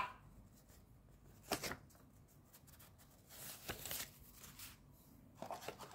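Paper leaflets and cardboard packaging being handled and shuffled: a few short papery rustles and taps, about a second and a half in, twice around the middle, and again near the end.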